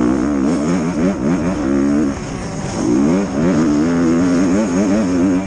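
Motocross bike engine running hard under the rider, its pitch rising and falling rapidly with the throttle over the rough track; it eases off briefly about two seconds in, then pulls hard again.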